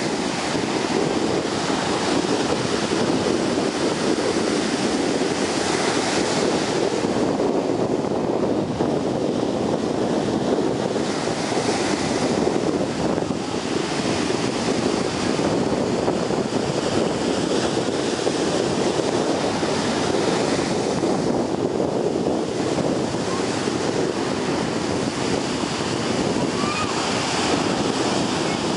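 Ocean surf breaking close to shore: a steady, unbroken wash of wave noise.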